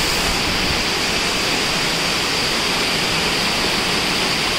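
Small waterfall pouring into a rock pool, a steady, even rush of water.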